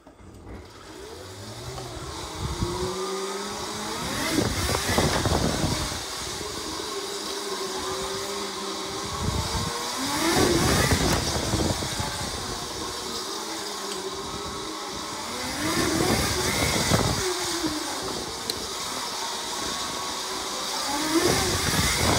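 Sotion FW11 electric motor on a 72 V Razor MX500 electric dirt bike, whining up in pitch as the bike accelerates and back down as it slows, four times over. Each time a louder rushing noise swells at the top of the run.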